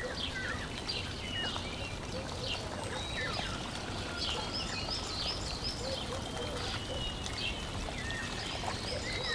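Birds chirping and whistling, many short calls in quick succession, over a steady rushing background noise.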